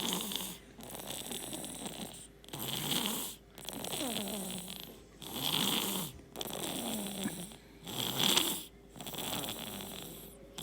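Heavy snoring: a rasping breath in and a breath out, repeating about four times, a cycle every two to three seconds.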